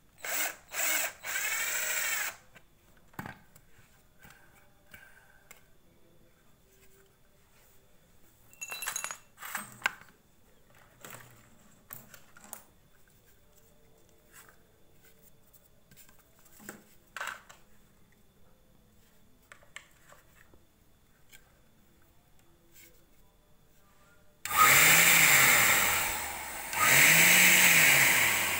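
Cordless drill driving screws into a PVC pipe fan housing in three short runs at the start, then handling clicks. Near the end, the homemade vacuum's fan motor is switched on and runs loudly twice, its whir rising and falling in pitch each time.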